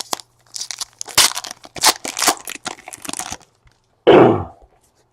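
Plastic trading-card pack wrapper being torn open and crinkled, a dense run of crackling that stops about three and a half seconds in. It is followed by one short, louder burst about four seconds in.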